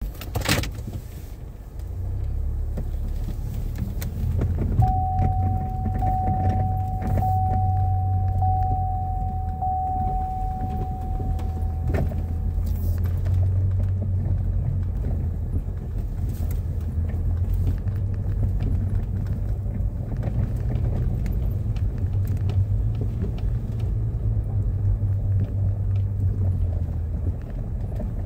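A vehicle driving slowly along a dirt driveway, heard from inside the cab: a steady low engine and tyre rumble with occasional knocks and rattles. From about five seconds in to about twelve, a steady electronic tone sounds, pulsing about once a second.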